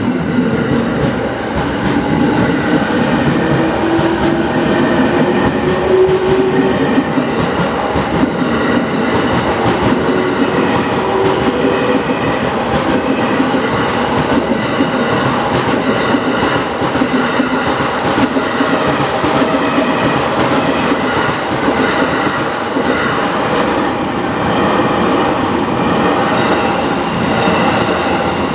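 JR Yokosuka Line electric train passing close by, its wheels clattering over the rail joints in a steady, continuous din. A rising whine sounds in the first few seconds.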